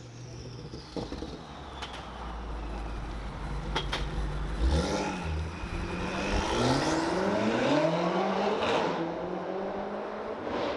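A car engine revving up and down, with a longer climb in pitch in the second half, as in hard acceleration.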